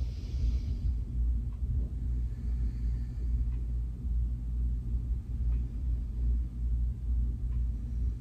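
Steady low background rumble and hum, with a faint breath out just after the start.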